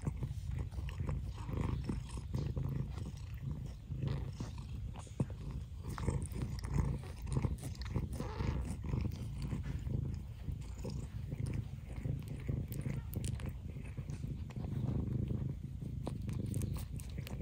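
Cat purring steadily close to the microphone, with small clicks of a kitten eating.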